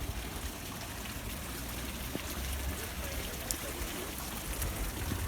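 Steady outdoor ambience: an even hiss over a low rumble, with a few faint clicks and faint distant voices.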